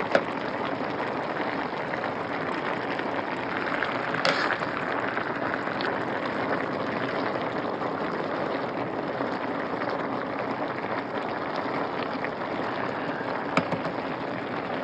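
Cabbage cooking down in its own liquid in a pot on high stovetop heat, sizzling and bubbling steadily. A few light clicks come through, at about four seconds in and again near the end.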